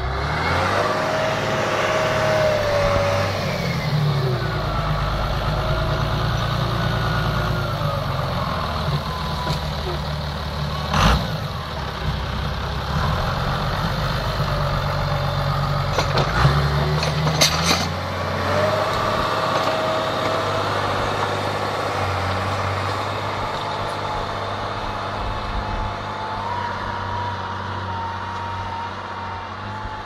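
Claas Ares 620 RZ tractor's John Deere six-cylinder diesel running steadily under plough load, with a higher whine that rises and falls in pitch. A few sharp knocks about a third of the way in and again just past halfway.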